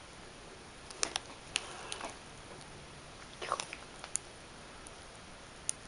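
A kitten playing with a beaded string toy: a few short, light clicks and rustles, irregularly spaced, with a small cluster about three and a half seconds in.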